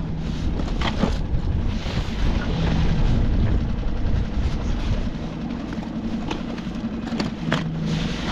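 Wind on the microphone aboard a small fishing skiff: a steady low rumble, with a few sharp knocks of gear being handled about a second in and again near the end.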